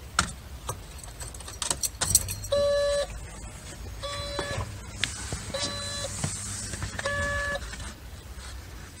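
A 1991 Nissan Sentra's electronic warning chime beeps four times, each beep about half a second long and about one and a half seconds apart, with the ignition key in and the engine off. Several sharp clicks come before the chime, and there is handling rustle under it.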